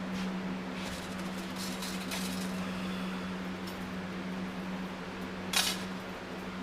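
A steady hum, with a few faint ticks and one sharp knock about five and a half seconds in, from engine parts being handled on a shop bench.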